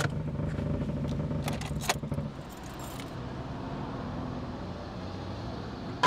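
Car engine running through a broken exhaust, a loud low drone with metallic rattles that doesn't sound good: the exhaust has come loose and is hanging off. About two seconds in it drops to a quieter steady noise.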